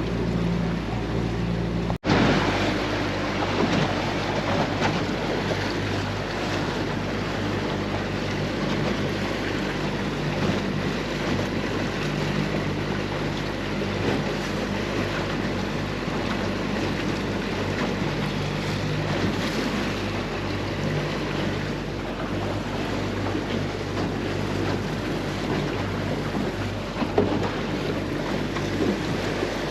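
A boat's motor running steadily, with water rushing against the hull and wind buffeting the microphone. There is a brief sharp dropout about two seconds in.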